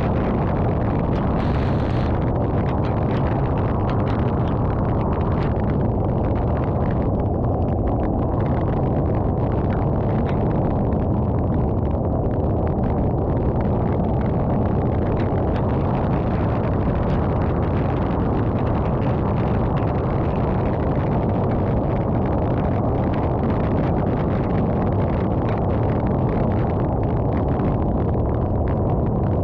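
Steady low rumble of a vehicle driving along a road in rain, an even noise without breaks, with faint light ticks above it.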